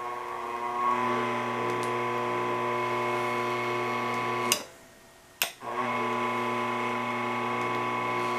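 Eastwood 21111 bead roller drive motor running with no load, turning the bead roller's gears with a steady whine that rises in pitch about a second in as the speed knob is turned up. About four and a half seconds in it stops with a click of the foot pedal, a second click follows, and the motor starts again after a short delay and runs steadily.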